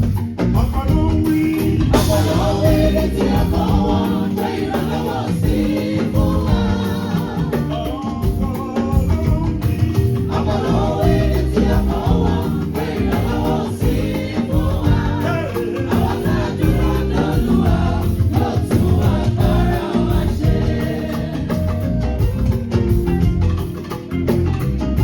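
A choir singing gospel music with a band of drums and bass guitar.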